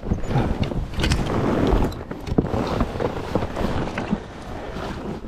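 A hooked trout being landed beside an inflatable raft: irregular water splashing with knocks and rustling of handling, over a low rumble of wind on the microphone.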